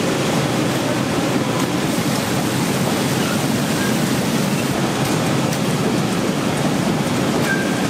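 Steady rush and splash of churning, frothing water in a stainless industrial vegetable-washing tank, with water jets pouring in from spray nozzles, as salted napa cabbage halves are rinsed.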